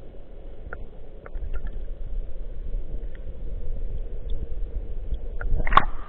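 Muffled underwater rumble of river current heard by a camera held under the surface, with a few faint clicks. Near the end comes a brief, loud splash as the camera breaks the water's surface.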